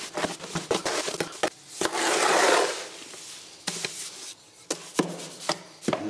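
Steel trowel scraping and chopping through sand-and-cement pre-mix mortar in a plastic tub, with sharp knocks against the tub and a longer, louder scrape about two seconds in.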